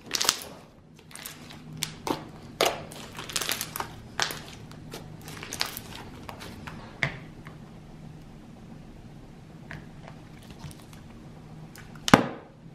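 Pink cereal slime studded with foam beads being squished and folded by hand, giving a quick run of sharp bubble pops and crackles that thin out after about seven seconds. Near the end, one sharp knock as a plastic slime tub is set down on the counter.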